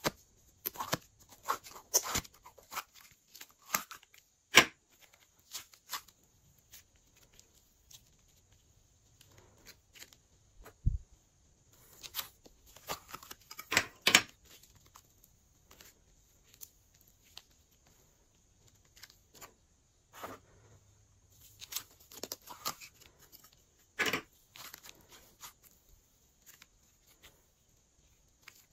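Thick slime squeezed out of clear plastic piping bags, making sticky clicks and crackles in three bouts with quiet gaps between.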